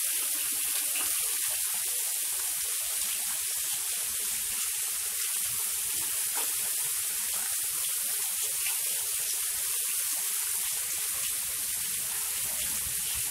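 Heavy rain falling steadily on paved ground: an even, unbroken hiss.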